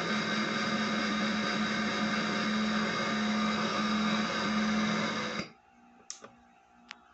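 Portable Bluetooth speaker's FM radio playing loud, steady static hiss with a hum in it, which cuts off suddenly about five and a half seconds in as the speaker is switched off. A couple of short clicks follow near the end.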